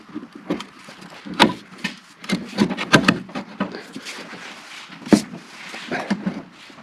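A steel pry bar knocking and scraping against the sheet-metal hood of a 1948 Silver King tractor as it is levered at a bent lip: irregular metal scrapes with a few sharper clanks among them.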